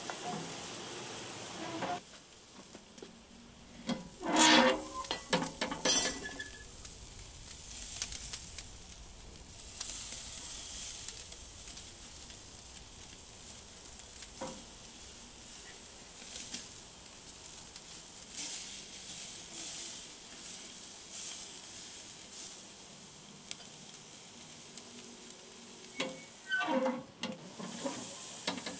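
Pork chops sizzling and crackling on the grate of a small barrel charcoal grill. Two short spells of louder knocking and scraping come about four seconds in and again near the end.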